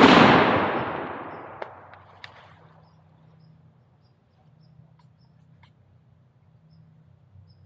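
The tail of a shotgun blast and its echo rolling away, fading out over about three seconds, followed by a few faint clicks.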